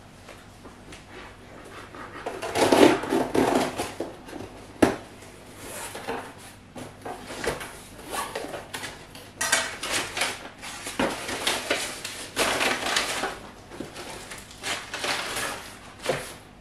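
A cardboard box being opened by hand: the flaps scraping and rustling, then crumpled brown kraft packing paper crinkling as it is pulled out. The rustling comes in uneven spurts with a few sharp clicks, loudest about three seconds in and again through the second half.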